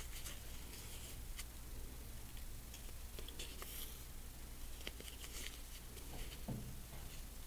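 Faint rustling and light ticks from hand-sewing: cotton fabric being folded over a paper template and basted with needle and thread. A low steady hum sits underneath.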